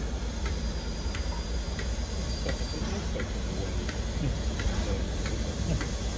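Steam locomotive 45231, an LMS Black Five, hissing as steam escapes around its cylinders and front end, over a steady low rumble with light ticking about twice a second.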